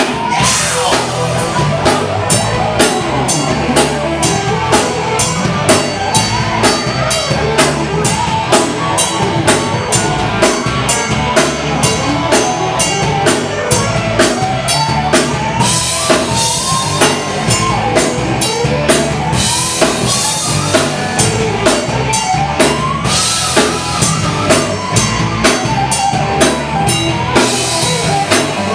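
Rock band playing live through an instrumental passage. A drum kit keeps a steady beat, with cymbal crashes in several stretches, over a bass line and a bending lead melody.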